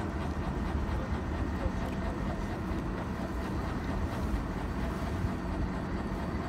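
Steady low outdoor rumble with no distinct events: a broad haze of noise, strongest in the low range, with faint steady hum tones above it.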